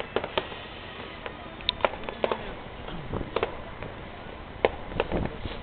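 Fireworks going off: a scattering of sharp cracks and pops at irregular intervals, about a dozen in all.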